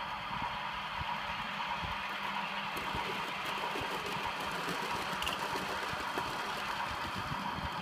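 Model railway train running through a crossover of Peco medium points: a steady running noise of motor and wheels on the rails, with a run of light clicks about three to six and a half seconds in as the wheels cross the points.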